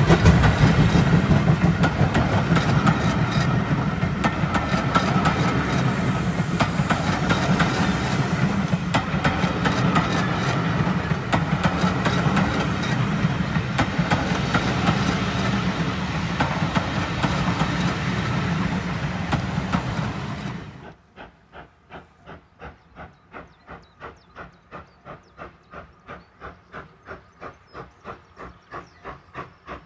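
A rake of passenger coaches behind the GWR Modified Hall steam locomotive Foremark Hall rolls past close by: a heavy rumble with many sharp wheel clicks over the rail joints, plus steam hiss. About two-thirds of the way through it cuts to the faint, even exhaust beats of the steam locomotive working in the distance, a few beats a second, slowly growing louder.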